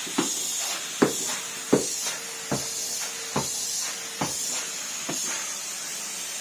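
Numatic Henry cylinder vacuum cleaner running with a steady hiss and a faint hum, with a sharp knock recurring about every second.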